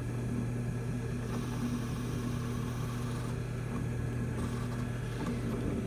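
Craftsman benchtop drill press running with a steady hum while its 7 mm bit bores down through a small wooden pen blank; the hum stops near the end. The bit had not been tightened in the chuck with the chuck key, which the owner gives as the reason it was spinning.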